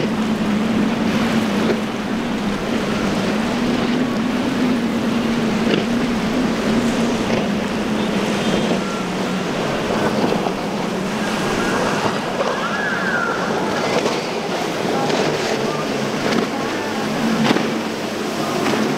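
Outboard-powered center-console boats running at speed through surf. A steady engine drone sits under the hiss of breaking waves and spray.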